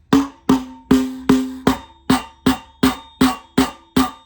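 Rubber mallet tapping a tight-fitting part into the e-bike, a steady run of about eleven knocks, roughly two and a half a second, each with a short ringing tone. It takes a pretty good hit, but the part is going in.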